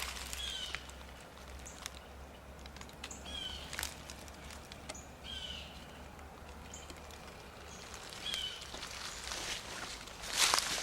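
A bird calling outdoors in short, downward-sliding chirps, four or five times a couple of seconds apart, over a quiet background with a low steady hum and faint clicks. A loud rustle comes near the end.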